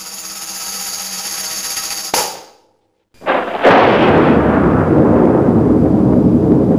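An intro jingle of held tones ends with a short swell about two seconds in. After a brief silence comes a sudden crack of thunder and a long, loud, low rumble.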